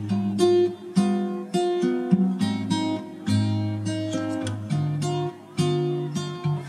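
Background music: an acoustic guitar playing a run of plucked notes and chords.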